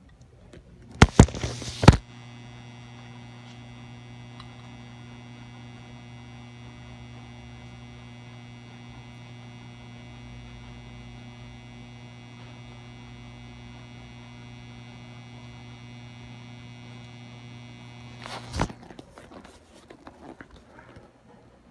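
400 W mercury vapor autotransformer ballast humming steadily at twice the mains frequency, with many overtones, while it drives two high pressure sodium lamps in series. A few sharp clicks come just before the hum sets in, about a second in. The hum stops with another click near the end.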